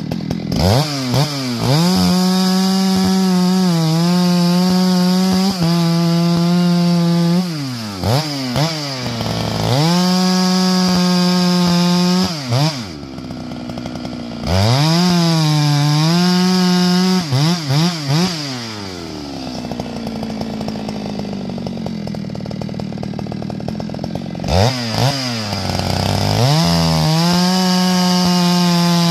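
Two-stroke chainsaw bucking tamarack logs: it is throttled up to full revs several times, its pitch sagging as the chain bites into the wood and recovering, then drops back to idle between cuts, with one longer idle in the middle.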